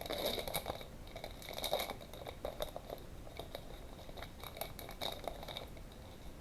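Crinkling and rustling of a trading-card pack wrapper as it is torn open and handled, a run of irregular crackles.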